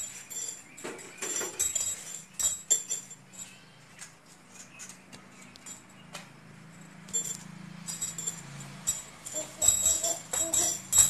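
Irregular metallic jingling and clinking, like small bells being shaken, in scattered clusters. A low steady hum runs underneath.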